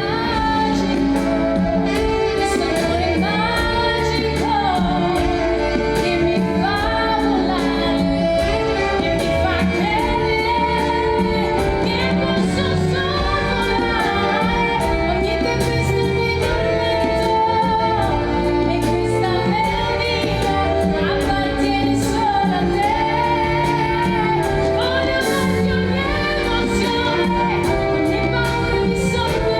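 A woman singing a slow, gospel-style song over a steady instrumental accompaniment.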